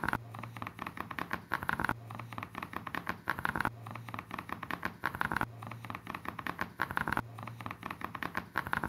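A short looped soundtrack of rapid clicking and pattering over a low hum, the same pattern restarting about every 1.8 seconds.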